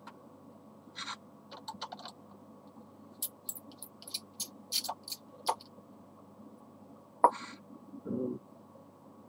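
Small sharp clicks and ticks of tiny laptop screws being handled and set down on a table, scattered over several seconds. One louder click comes about seven seconds in, then a short dull knock.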